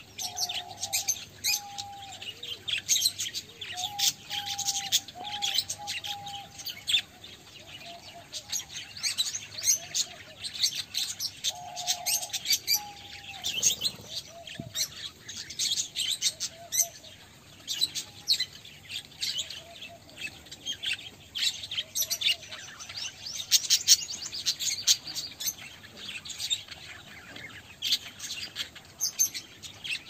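A flock of budgerigars chirping and chattering in rapid, overlapping high notes, with a few lower whistled notes now and then.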